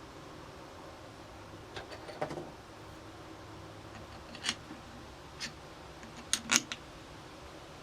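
A handful of sharp metallic clicks and clinks as a metal lathe chuck is handled, threaded onto the lathe spindle and tightened, with a louder double clink about six and a half seconds in.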